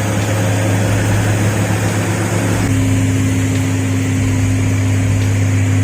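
An engine running steadily and loudly, with a shift in its note about two and a half seconds in.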